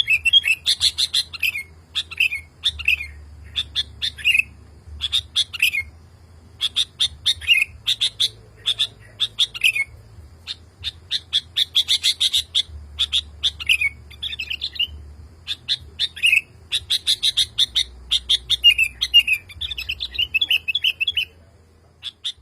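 Male sooty-headed bulbul singing nonstop, a calling song to a female: rapid runs of short chirps and bubbly whistled phrases that stop shortly before the end.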